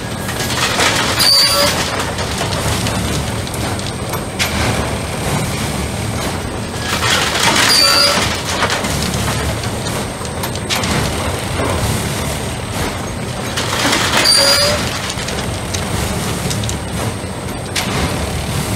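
Unimat 09 track tamping machine at work: a steady diesel and hydraulic drone, with three louder surges about six and a half seconds apart, each carrying a short high squeal or hiss. The surges come with the tamping tools working the ballast under the sleepers as the machine moves along the track.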